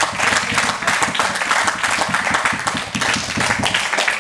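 Spectators applauding and clapping continuously: a dense, steady patter of many hands.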